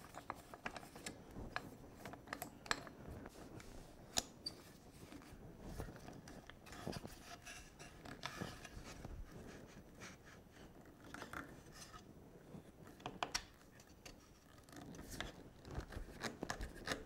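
Faint scattered clicks, taps and scrapes of plywood pieces being positioned and a wooden handscrew clamp being handled on them.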